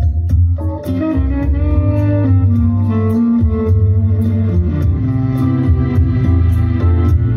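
Guitar music with heavy bass and a steady cymbal beat, played loud through a pair of Boston Acoustics A150 three-way loudspeakers with 10-inch paper-cone woofers, 4.5-inch midranges and 1.5-inch fabric-dome SEAS tweeters.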